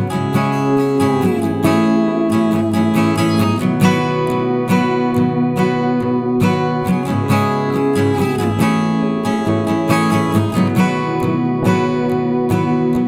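Background music: strummed acoustic guitar playing steadily, with some sliding notes.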